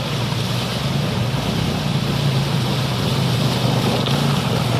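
ATV engine running as the four-wheeler drives through a shallow, fast-flowing rocky stream, with the steady rush and splash of water around its wheels.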